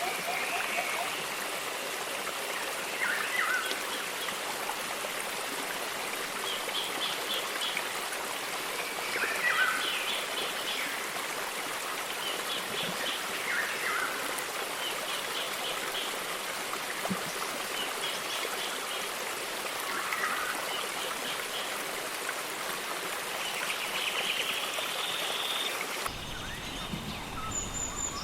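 Steady running-water ambience like a stream, with short chirping bird calls repeating every couple of seconds over it. Near the end it cuts abruptly to a quieter outdoor ambience with different bird calls.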